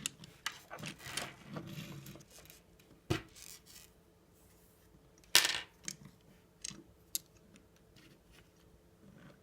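Small plastic parts of a Beyblade launcher being handled during reassembly: a couple of seconds of rubbing and rattling, then scattered sharp clicks, the loudest about five and a half seconds in.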